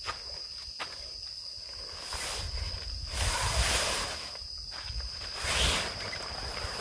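A steady, high-pitched trill of night insects, with three bursts of rustling as the tent's fabric door flap is pulled and handled, the longest about three seconds in.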